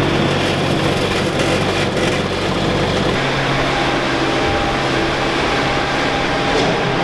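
John Deere 8960 tractor's big diesel engine idling steadily, warmed up after a cold start. Its deep low drone drops away about three seconds in, leaving a steady hum.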